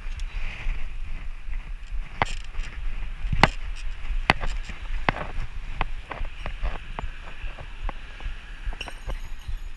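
Riding a city bicycle with a wire basket: a steady low rumble of wind and road noise on the microphone. From about two seconds in there is a string of irregular sharp clicks and rattles from the bike.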